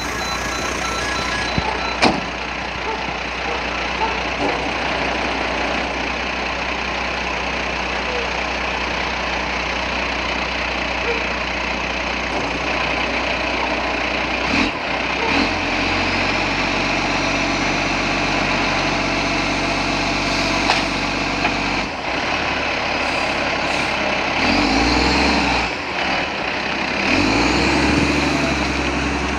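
Garbage truck's diesel engine running steadily close by, its low note shifting about halfway through and surging a couple of times near the end. A reversing alarm beeps for about the first second and a half, and there is a sharp click about two seconds in.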